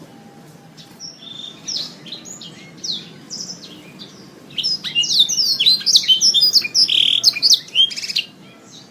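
Domestic canary singing: scattered short chirps and trills at first, then about halfway through a loud, fast stream of rapid trills and warbles lasting about four seconds before it stops.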